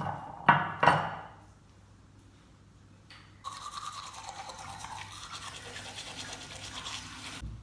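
Two short, sharp knocks near the start, then a manual toothbrush scrubbing teeth, a steady rapid brushing that begins a little past the middle and stops abruptly just before the end.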